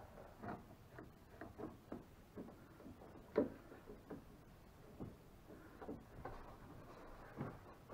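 Irwin one-handed bar clamp being squeezed and set on a wooden deck panel: irregular ratcheting clicks and light knocks, with one louder knock about three and a half seconds in.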